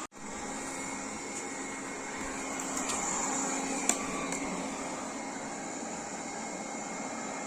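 Xiaomi Mi Robot Vacuum-Mop Essential robot vacuum running steadily, its motor whirring, with a sharp click about four seconds in.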